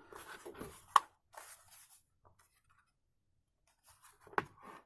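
Small plastic parts of a cheap power strip being handled: rustling and scraping with a sharp plastic click about a second in, a near-silent pause, then more handling and another sharp click near the end.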